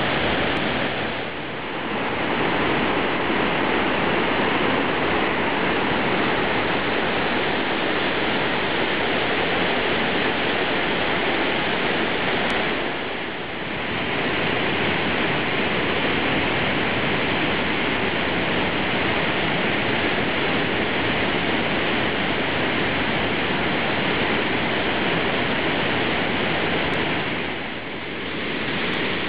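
Enormous volume of water rushing out of opened lake outlet gates and down a concrete spillway channel during a flood release after heavy rain: a steady rush of churning whitewater that eases briefly three times.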